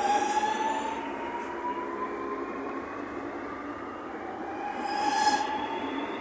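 Electric commuter train running past and pulling away, its traction motors whining in a tone that rises slowly in pitch as it speeds up, over the rumble of wheels on rail. A brief shrill high-pitched sound comes about five seconds in.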